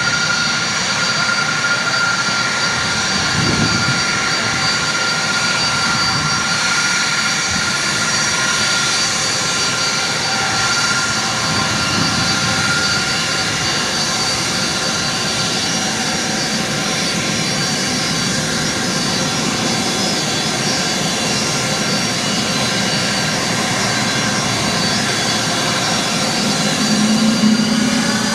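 Jet airliner engines running with a steady high whine over a broad rushing hiss. Near the end the whine starts to rise in pitch as the engines spool up.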